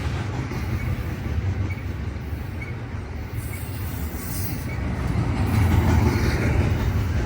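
Train passing on the rails: a steady low rumble of rolling rail cars that grows louder about five seconds in.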